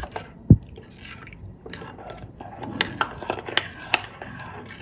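A spoon stirring a wet spice paste of ground spices, lemon juice and water in a small bowl, with scattered taps and clinks of the spoon against the bowl. There is a sharp knock about half a second in and a run of taps about three seconds in.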